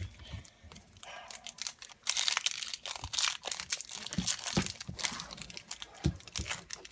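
Crinkling and tearing of a trading-card pack's wrapper being torn open: a string of irregular crackles, sparse at first and denser from about two seconds in.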